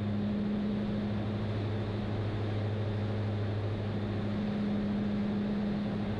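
Steady drone of a Diamond DA62's twin Austro turbodiesel engines and propellers heard inside the cabin, an even hum with a constant low pitch over a rushing noise, on descent toward an approach.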